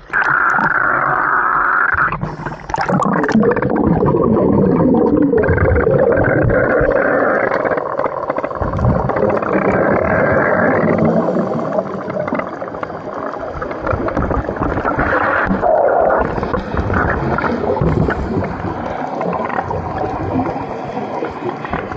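A camera plunges into the sea with a sudden loud rush of water, then muffled underwater rumbling and gurgling from water moving around the camera and from scuba divers' exhaled bubbles.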